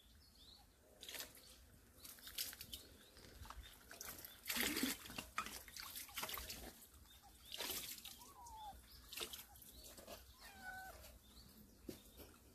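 Water splashing and dripping in a plastic gutter fed by a garden hose while a kitten drinks from it, with a few louder irregular splashes.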